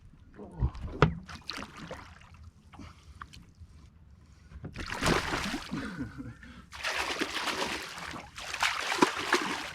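A couple of knocks against a small fishing boat, then three bursts of splashing and sloshing water, each a second or so long, as a caught fish is released over the side.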